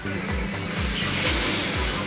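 Background music with a steady deep beat, about two beats a second.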